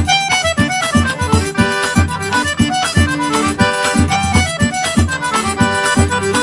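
Accordion-led music with a steady beat.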